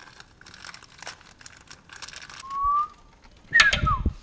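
Plastic packet of ARP washers crinkling as it is torn open. About two and a half seconds in comes a short rising whistled note. Near the end a louder whistled note slides down in pitch over heavy bumping and rubbing close to the microphone.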